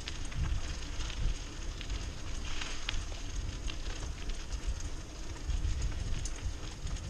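Mountain bike rolling along a dirt and gravel trail: tyres crunching with small crackles and clicks from grit and the bike, over a low rumble.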